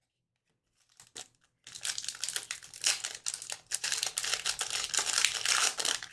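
Crinkling and tearing of a trading-card pack wrapper as a pack of hockey cards is opened. A couple of faint clicks come about a second in, then a long stretch of dense crinkling that stops suddenly near the end.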